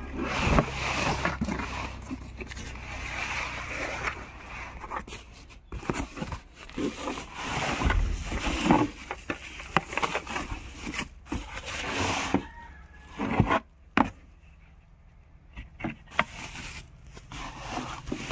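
A cardboard box and a helmet's packaging being handled: irregular rustling and scraping with many sharp clicks and knocks, going quieter for a couple of seconds toward the end.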